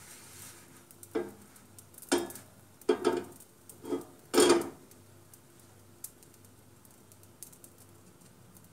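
A frying pan knocking and scraping against the metal grate of a gas stove as it is moved about on the burner: five or six short clatters in the first five seconds, the loudest about four and a half seconds in, then only a few faint ticks.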